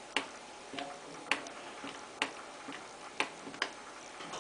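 Sharp plastic clicks from the control panel of a Beko WM5140 washing machine, five of them at roughly one-second intervals, as its settings are stepped through.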